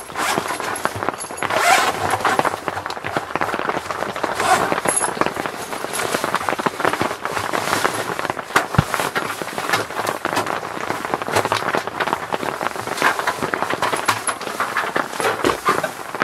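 Dense crackling and rustling of camping gear (bags and a foil mat) being unpacked and moved by hand on a tent floor, with louder rustles about two seconds and four and a half seconds in.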